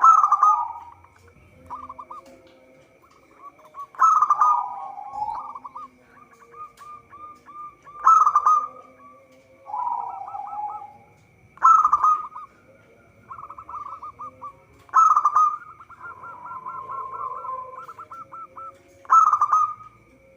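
Zebra dove cooing. A loud call comes every three to four seconds, each a quick run of short warbled coo notes, with strings of softer staccato coos between the calls.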